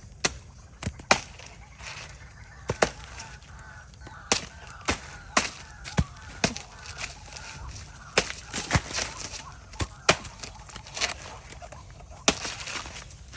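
A blade chopping into a banana tree's trunk: a run of sharp strikes at uneven spacing, roughly one or two a second.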